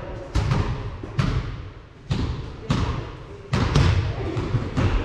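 Basketball bouncing on a hard gym floor during play. It gives a series of irregularly spaced thuds, each echoing in the hall.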